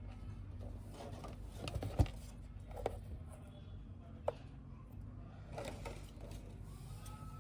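Small toy pieces being handled, giving a few light taps and clicks, the sharpest about two seconds in, over a low steady hum.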